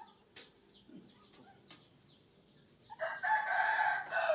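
A rooster crowing once, starting about three seconds in and loud for just over a second, over faint high cheeping chirps that repeat throughout.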